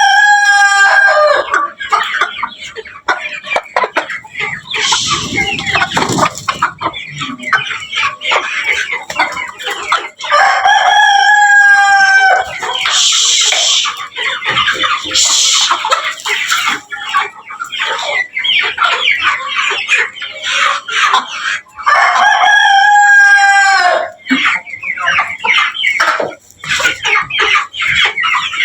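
A flock of desi chickens clucking without pause, with roosters crowing three times, each crow about two seconds long: at the start, about ten seconds in and about twenty-two seconds in.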